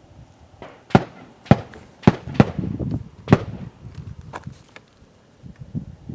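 Gunshots: about five sharp, irregularly spaced reports in the first three and a half seconds, followed by a couple of fainter ones.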